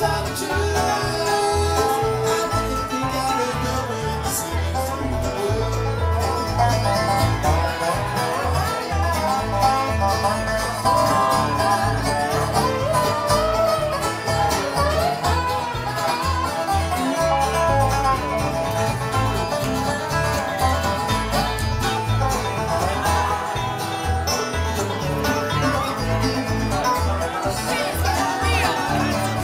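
Bluegrass band playing an instrumental break live: banjo, acoustic guitar and upright bass, with the bass notes pulsing steadily underneath.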